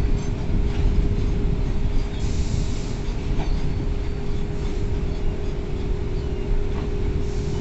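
Freight train of covered boxcar wagons rolling past slowly: a steady low rumble of wheels on the rails with a few light clicks, and a short hiss about two seconds in.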